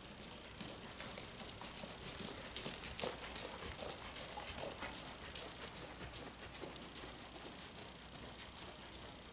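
Horse's hooves striking the sand footing of an indoor riding arena at a walk: a steady run of hoofbeats, a few per second.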